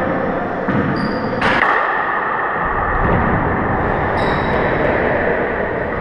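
Handball court: a single sharp, echoing smack of the handball about a second and a half in, with brief sneaker squeaks on the hardwood floor just before it and again about four seconds in, over steady room noise.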